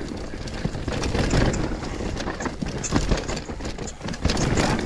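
Mountain bike descending a rough, steep trail at speed: tyres rumbling over dirt and roots, with frame, chain and suspension rattling in irregular clatters.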